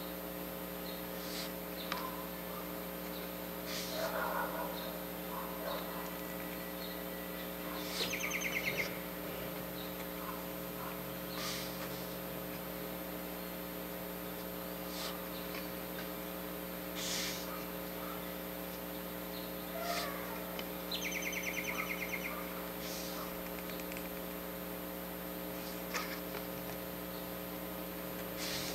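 Steady electrical hum with several fixed tones, with faint scattered clicks and rustles as the cards are handled. Two brief, rapid, high chirping trills come about eight seconds in and again about twenty-one seconds in.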